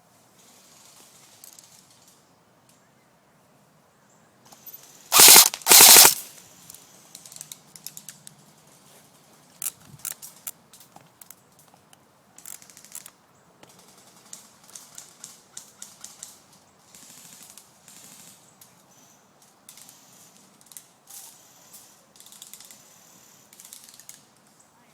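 Airsoft gun fired in two short, very loud bursts about five and six seconds in, each lasting about a third of a second. Scattered light ticks and rustles follow, like steps through brush.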